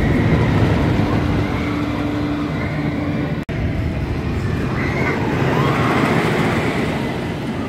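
Train of a GCI wooden roller coaster rumbling over its wooden track, a loud steady roar that drops out for an instant about three and a half seconds in.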